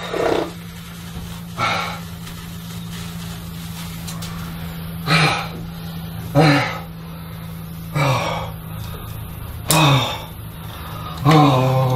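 A man's short gasping grunts, about seven of them a second or two apart, over a steady low hum.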